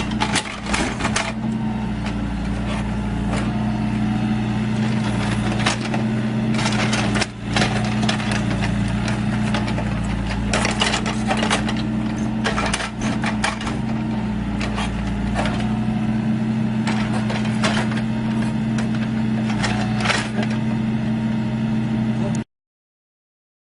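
A heavy machine's engine runs steadily while wooden logs repeatedly knock and clatter against each other as they are handled. It cuts off suddenly near the end.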